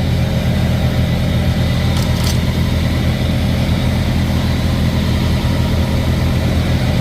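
Heavy diesel truck engine idling with a steady low rumble. Two light clicks about two seconds in.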